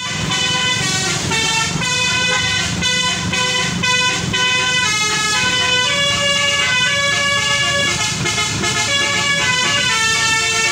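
Bus telolet horn, a Basuri multi-tone air horn, sounding continuously and playing a quick melody of short chord-like notes that change pitch several times a second, over a low hum.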